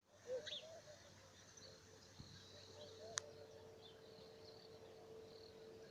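Faint birdsong: scattered short, high chirps and warbles, a little louder in the first half second. A steady low hum runs underneath from about a second and a half in, and there is a single sharp click near the middle.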